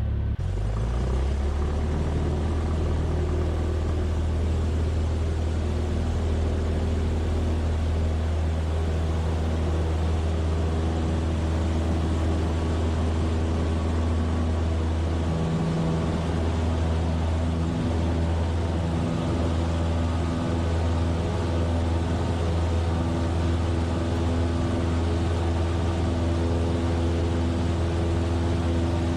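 Cessna 172F's six-cylinder Continental O-300 engine and propeller running steadily. The note swells up suddenly at the start, then holds, with a small shift in pitch about halfway through.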